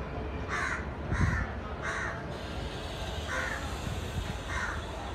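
Crows cawing: a series of short, raspy caws, three in quick succession in the first two seconds and then a few more, more widely spaced, over a steady low rumble.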